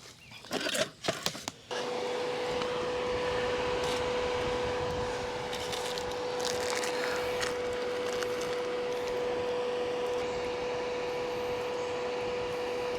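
A few knocks of handling, then a small electric motor switches on about two seconds in and runs steadily with an even whirring hum until the end.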